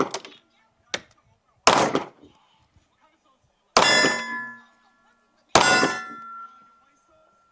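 Three handgun shots about two seconds apart, each followed by a ringing clang from steel targets that fades over a second or two; a faint tap comes about a second in.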